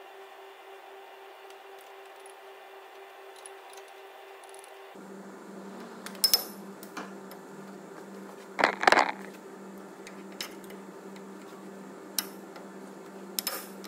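Metallic clicks and knocks of new brake pads being pushed and tapped into a front brake caliper carrier, their backing plates and spring clips snapping into place past the locking tabs. The loudest cluster comes about nine seconds in, with single clicks before and after, over a steady low hum.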